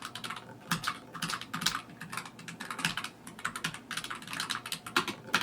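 Typing on a ProtoArc Mech K300 mechanical keyboard with low-profile red switches: a quick, uneven run of keystroke clicks with a light clack.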